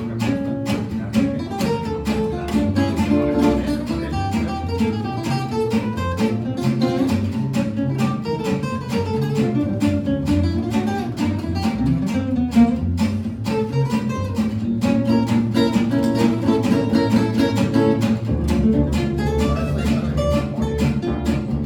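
Two acoustic guitars and an upright double bass playing live: quick melodic runs that rise and fall over a steady strummed rhythm and a plucked bass line.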